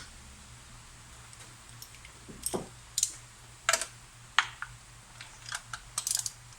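Irregular sharp clicks and light knocks of hand tools and the ignition coil being worked loose from cylinder 2 of a V6 engine, with a quick run of several clicks near the end.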